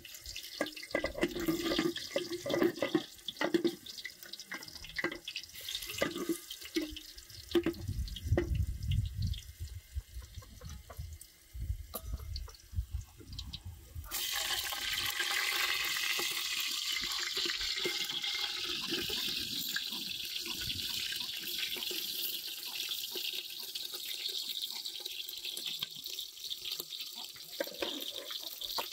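Scattered knocks and clatter over water sounds, then about halfway through a steady rush of running water starts and keeps going.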